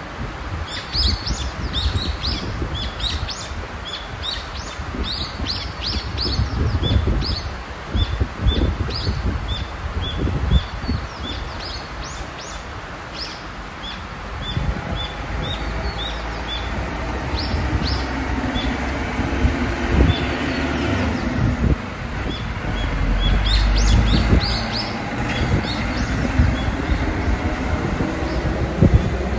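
Small birds chirping in quick, repeated high calls over a low rumbling noise. From about halfway, a diesel dump truck's engine runs steadily underneath.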